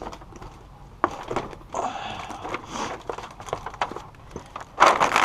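Dynamat Extreme sound-deadening sheet being handled: its foil face and backing paper rustling and crinkling, with scattered clicks, and a louder crinkle near the end.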